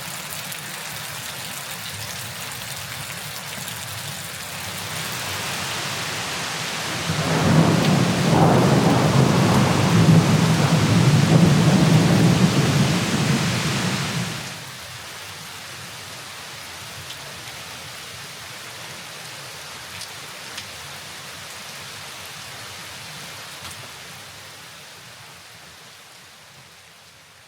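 Steady rain with a long, loud rumble of thunder in the middle lasting about seven seconds, which stops suddenly; the rain then carries on and fades out near the end.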